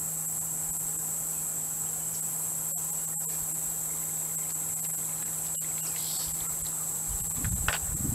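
Steady high-pitched drone of a summer insect chorus, with a few low bumps near the end.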